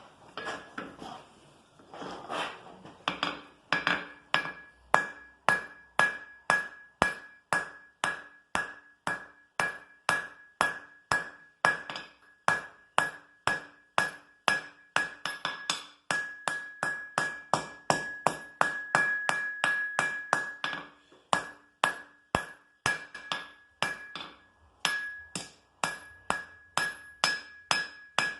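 Blacksmith's hand hammer striking iron on an anvil in a steady rhythm, about three blows a second, each blow followed by a bright ring from the anvil, while forging a bevelled scroll end.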